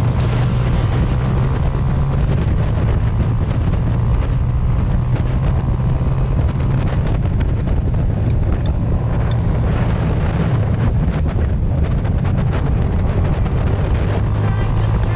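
Small motorbike engine running at a steady cruise, a constant low drone, with wind buffeting the microphone while riding.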